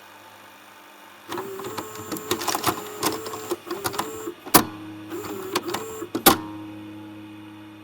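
Video recorder mechanism running: a small motor whirring and changing pitch amid rapid mechanical clicks, with two sharp loud clunks, after which a steady motor hum is left fading out.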